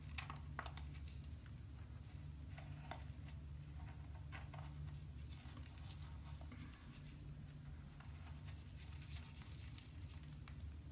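Faint sloshing and squishing of a hand working foamy bath water and crushing the last bits of a bath bomb, with a few soft splashes over a steady low hum.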